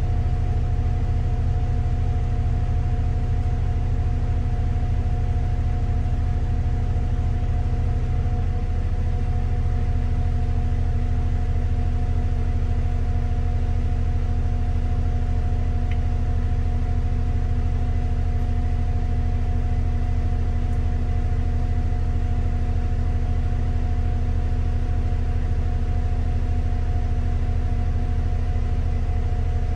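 Bus running steadily: a constant low hum with several steady tones that hold the same pitch throughout, with no revving or gear changes.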